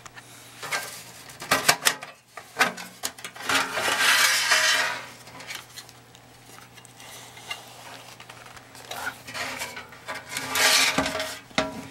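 Sheet-metal case of a HeathKit IP-12 battery eliminator being worked loose and slid off its chassis: a few metal knocks and clanks, then a long metal scrape about four seconds in, and another scrape and clatter near the end.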